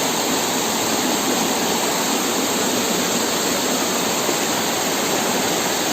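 Waterfall pouring over rocks: a steady, unbroken rush of water.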